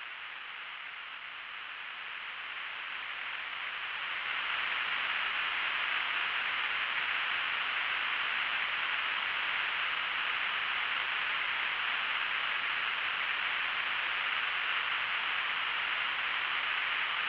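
Static hiss, thin and lacking low end, that grows louder over the first few seconds, holds steady, then cuts off abruptly near the end.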